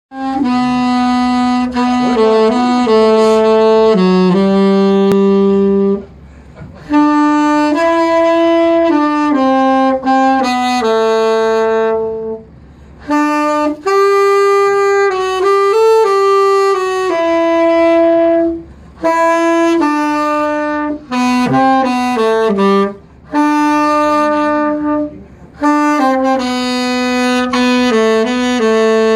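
Cannonball Godiva tenor saxophone played solo without accompaniment: a slow single-line melody in phrases of a few seconds, with short pauses between them.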